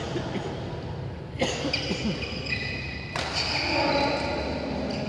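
Badminton players' court shoes squeaking on the court mat, with footfalls and light knocks; a cluster of short high squeaks comes from about one and a half seconds in.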